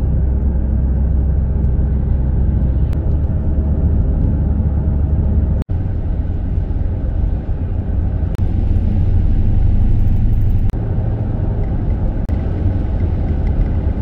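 Steady low road and engine rumble heard from inside a minivan cruising at highway speed. It drops out for an instant just before six seconds in, at a cut in the recording.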